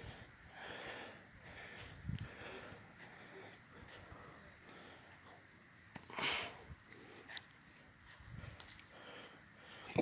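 Quiet outdoor ambience with a faint, steady, high insect trill that pulses rapidly. There are a couple of soft footsteps on bark mulch and a brief rustle about six seconds in.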